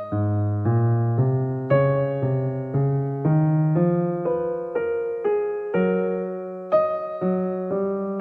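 Slow, gentle piano music: notes and chords struck every half second to a second over a bass line that climbs step by step.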